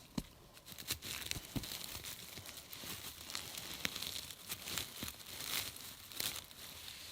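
Continuous crinkling, rustling handling noise with many small sharp clicks and snaps.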